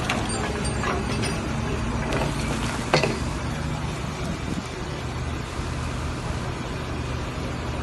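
Excavator running steadily with a hydraulic ripper working against a rock face, a low, even engine and hydraulic hum. A few sharp knocks come in the first three seconds as the ripper tooth strikes and breaks the stone, the loudest about three seconds in.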